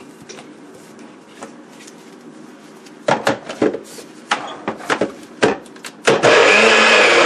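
Plastic clicks and knocks as a NutriBullet-style personal blender cup is set and twisted onto its motor base. About six seconds in, the blender motor starts running loudly, chopping whole orange pieces, peel included, with eggs.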